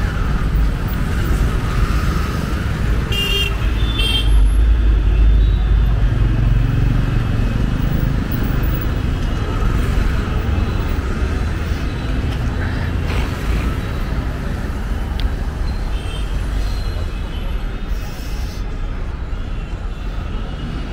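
Busy street traffic: motor vehicles running and passing with a steady low rumble, and two short horn toots about three and four seconds in, with fainter honks later on.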